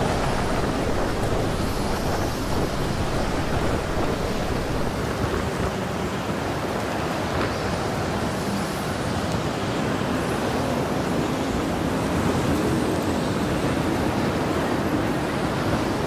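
Storm wind blowing hard and steadily, with wind buffeting the microphone.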